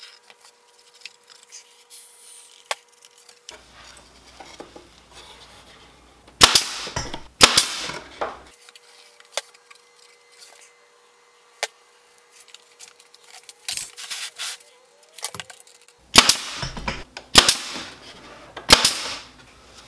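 Sharp, loud cracks in two clusters, two about six to seven seconds in and three more near the end, with lighter clicks between them, from work on a wooden shelf rack.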